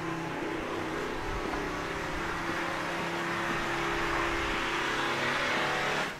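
A car's engine running at an even pitch with tyre noise, growing louder, then cutting off abruptly near the end.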